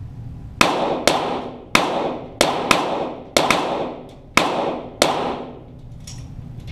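.22 Walther GSP target pistols firing eight shots at an uneven pace over about four and a half seconds, each shot ringing off in the range's echo.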